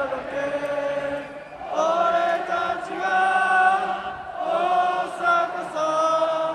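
Large crowd of Gamba Osaka football supporters singing a chant in unison, in long held phrases with short breaks between them, near 1.5 s and 4 s in.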